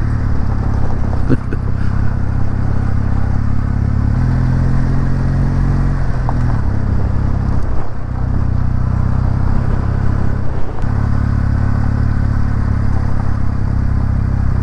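Kawasaki W650's air-cooled parallel-twin engine running steadily as the bike is ridden slowly over gravel. The engine note dips briefly three times, about six, eight and eleven seconds in.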